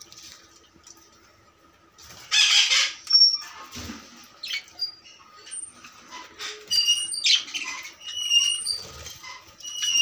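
Rose-ringed (Indian ringneck) parakeets at a plate of chopped vegetables: a short, loud flutter of wings about two seconds in, then scattered pecking clicks, and from about seven seconds on a string of short, high squeaks and chirps from the birds.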